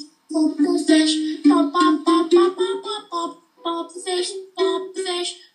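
A child singing a simple song in short notes that step up and down in pitch, with brief pauses between phrases.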